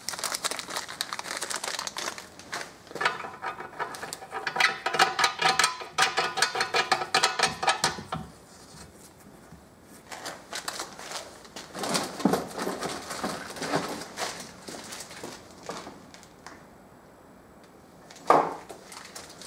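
Paper towel crinkling in a gloved hand, then light scattered clicks and scrapes of metal fittings being handled and screwed onto the sump's oil-return flange.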